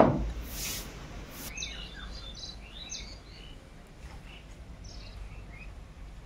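Small birds chirping in short, high, scattered calls, after a single sharp knock right at the start.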